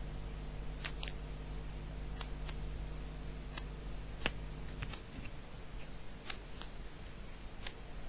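Quiet room tone: a low steady hum that stops about five seconds in, with scattered small clicks throughout.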